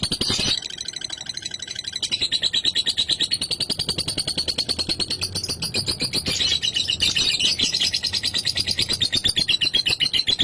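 Lovebird singing its long 'ngekek' chatter: a fast, unbroken run of high, rattling notes, many to the second.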